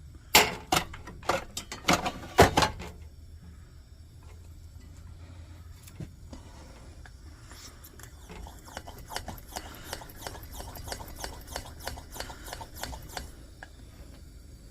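Sharp metal knocks and clicks from handling a vintage Coleman lantern's parts, several loud ones in the first few seconds. Later comes a fast, even run of light clicking, about four a second, lasting some five seconds.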